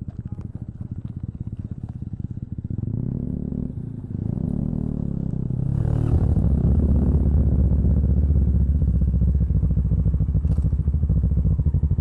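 Kawasaki Ninja 650's parallel-twin engine running through an Arrow aftermarket exhaust under way, revving up twice with a brief drop in pitch between, as at a gear change. About six seconds in it gets louder and settles into a steady deep exhaust drone.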